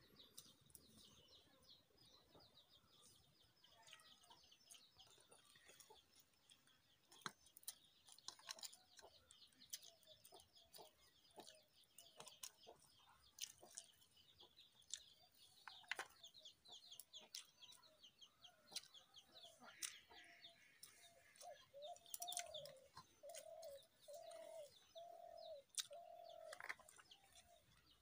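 Faint chirping and twittering of small birds, with scattered soft clicks. From about three-quarters of the way in, a run of about six short, lower repeated calls.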